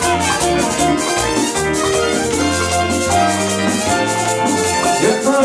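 Live Latin band playing an instrumental passage: electric guitar, horns and drums over a steady rhythm, with a shaker rattling along.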